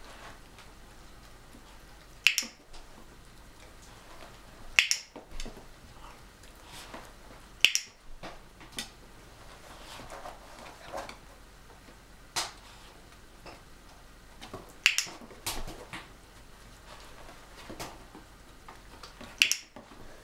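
Six sharp clicks from a dog-training clicker, a few seconds apart, each marking an Italian greyhound's nose touch on a wall target. Softer taps fall between the clicks.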